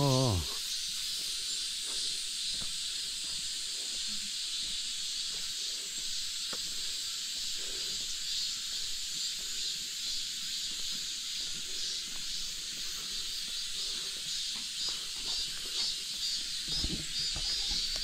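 Steady high-pitched insect chorus in summer forest trees, running without a break. A brief low rumble comes near the end.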